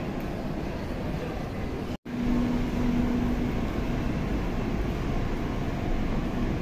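Steady background rumble and hiss of an indoor mall that cuts out for an instant about two seconds in. It resumes as the low, steady rumble of an underground car park, with a held hum for a second or so just after the cut.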